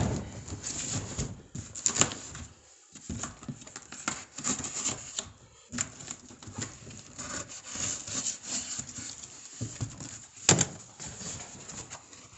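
Cardboard packaging being handled and pulled open: irregular rustling, scraping and rubbing with scattered knocks, the sharpest one about ten seconds in.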